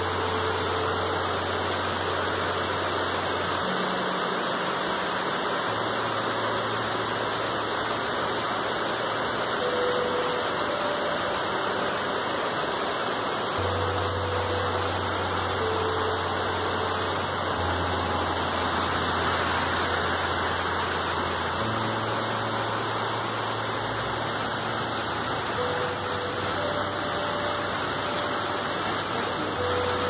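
Heavy rain falling steadily, an even, unbroken hiss.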